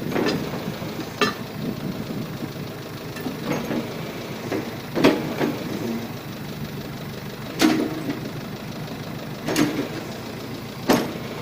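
John Deere 410 backhoe's diesel engine running steadily as the machine is moved, with sharp metallic clanks every second or two.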